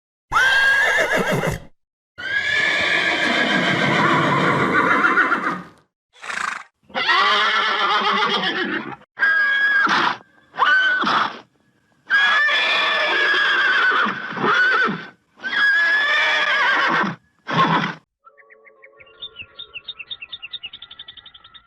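Loud animal calls, about nine in a row, some long and wavering and some short, with soft music starting near the end.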